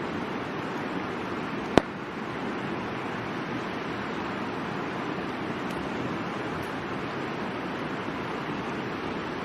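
A river rushing in a steady noisy wash, with one sharp loud pop from the burning campfire wood about two seconds in and a couple of faint crackles later.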